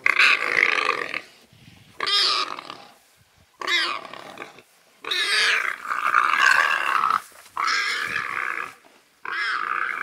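Warthog squealing in distress while a leopard holds it: loud squeals in about six bouts, the longest lasting about two seconds.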